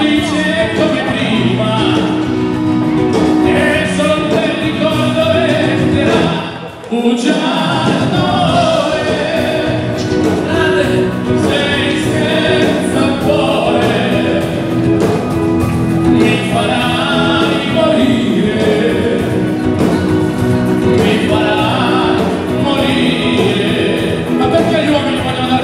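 Live dance band playing, with singing over the band. The sound dips briefly about seven seconds in.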